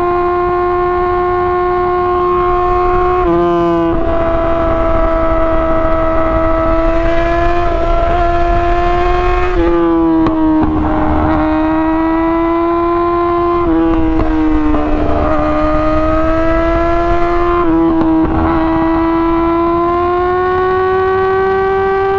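2017 Yamaha R6's inline-four engine through an Akrapovic exhaust, running hard at high revs with a steady high-pitched wail. The pitch dips briefly about every four seconds and climbs again.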